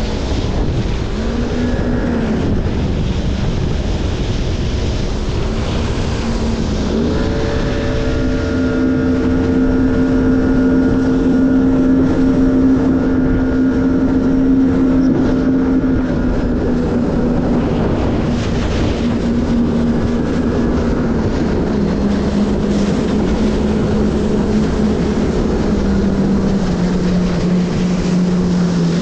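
Jet ski engine running under way, with wind and water rushing. The engine pitch rises as the throttle opens about a second in and again at about seven seconds, holds steady, then drops slowly over the last ten seconds as it eases off.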